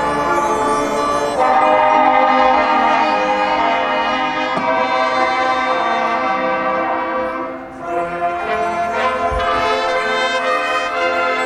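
High school marching band brass section playing sustained chords, swelling loud about a second and a half in and dipping briefly before coming back in near the end.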